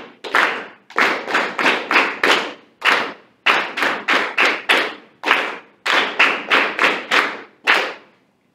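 Hands clapping a rhythm exercise in strict time, a mix of quarter-note and eighth-note claps at about two to four a second, stopping shortly before the end.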